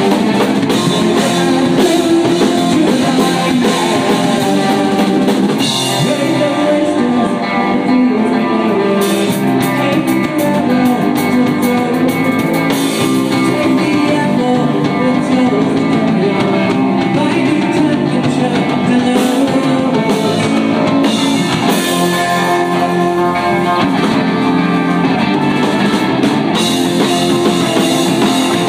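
Rock band playing live, with electric guitars, a drum kit and a singer on vocals.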